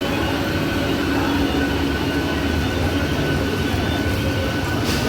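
Mumbai suburban electric train running: a steady, dense rumble with a faint steady hum over it, and a short sharp click near the end.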